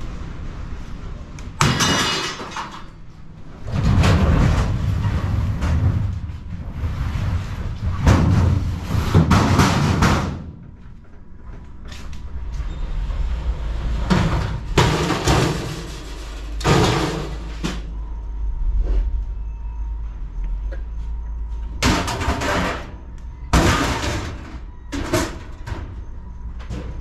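Empty steel file cabinets scraping across a box truck's floor and clattering down onto the ground, in a run of loud metallic scrapes and crashes. Several last two to three seconds in the first half, and shorter bangs follow in the second half.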